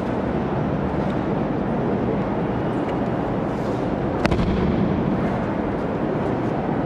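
One sharp slap about four seconds in: the thrown partner's breakfall hitting the tatami mat. It sounds over a steady rumbling hall noise.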